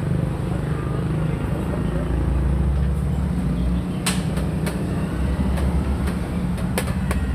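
A steady low rumble with several sharp clicks in the second half, about four seconds in and again near the end: xiangqi pieces being handled and set down on a wooden board.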